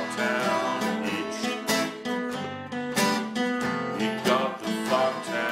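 Two acoustic guitars, one of them a twelve-string, strummed together in an easy country-style tune with a steady strum rhythm.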